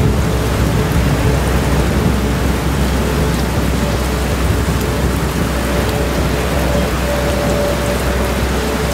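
Thunderstorm ambience: steady rain hissing over a continuous low rumble of thunder.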